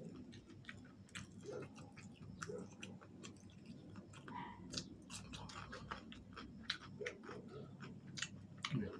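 Close-up chewing and biting of fried chicken wings, with many small irregular crunching clicks.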